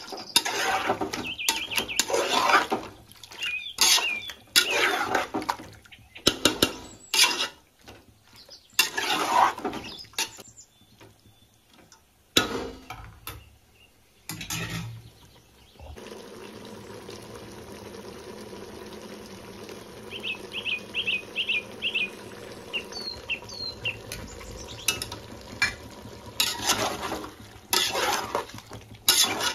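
Water sloshing and metal pots and utensils clattering during cooking, then a steady low hum with a quick run of short high chirps.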